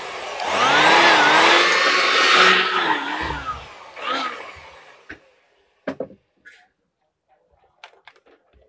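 Handheld electric blower running for about three and a half seconds, its motor pitch wavering up and down, then a short second blast about four seconds in, used to blow dust out of a sparking CRT television. Light clicks and knocks follow.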